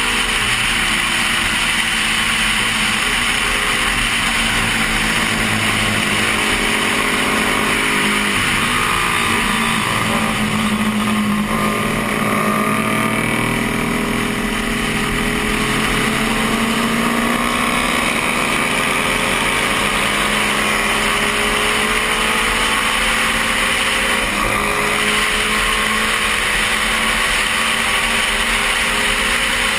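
Honda CB350 parallel-twin engine running at racing speed, heard from a helmet camera with wind rushing over the microphone. The engine note drops around ten seconds in, then climbs again.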